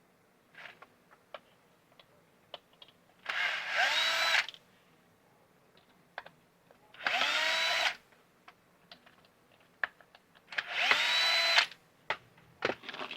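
Cordless drill-driver running in three short bursts, each spinning up quickly to a steady whine, as screws are driven out of the drainage pump's housing. Light clicks and handling knocks come between the bursts.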